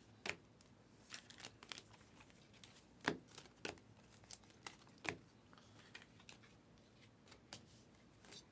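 Panini Prizm basketball cards and their pack wrappers being handled as the cards are flipped through: faint, irregular soft clicks, taps and crinkles, with the sharpest about three and five seconds in.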